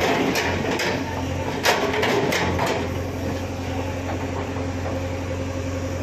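JCB 3DX backhoe loader's diesel engine running steadily, with a hydraulic breaker chisel knocking sharply and irregularly against a concrete road during the first three seconds or so.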